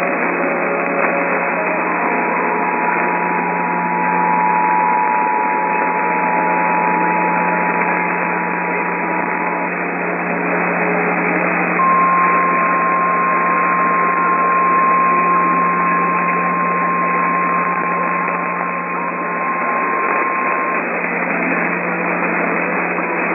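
Emergency Alert System attention signal on a radio broadcast: a steady two-tone alarm held for about nine seconds. After a short gap comes a single steady warning tone for about nine more seconds. Both are heard through heavy radio static and hiss, and they herald a severe thunderstorm warning.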